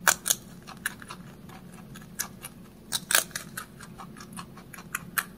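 Holland lop rabbit chewing a green vegetable stalk close to the microphone: short, crisp crunching clicks, about three a second.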